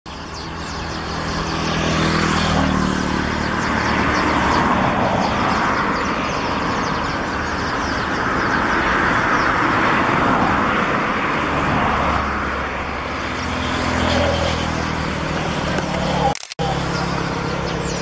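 Steady vehicle engine and road noise, with a low engine hum that swells about two seconds in and again near the end, and a brief dropout shortly before the end.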